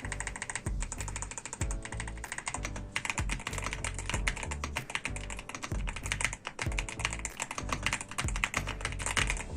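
Rapid, continuous typing on a YUNZII AL65 mechanical keyboard with an aluminium case, its keystrokes clacking in quick runs. Background music with a steady bass plays underneath.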